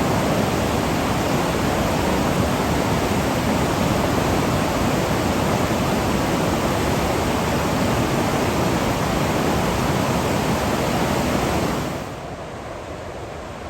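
Waterfall: a steady rush of falling water that drops suddenly to a quieter level about twelve seconds in.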